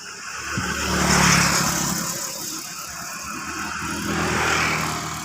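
Komatsu bulldozer's engine running with a steady low hum, swelling louder about a second in and again near the end.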